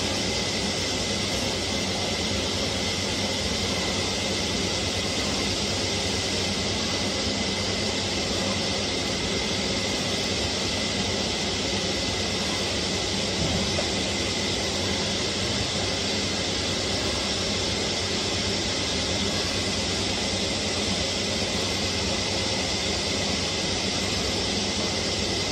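CNC oscillating knife cutter cutting corrugated cardboard: a steady, even mechanical noise with a thin high tone running through it.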